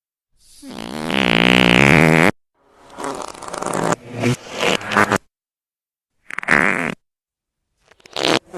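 Fart sound effects: one long fart with a wavering pitch lasting about two seconds, then a quick string of four or five short ones, a single short one, and two quick ones near the end, with dead silence between them.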